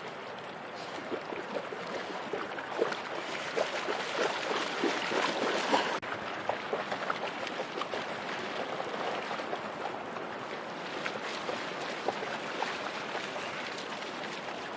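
Shallow river water rushing over rocks, with splashing from a dog wading and lunging after salmon. The splashing is busiest and loudest about four to six seconds in.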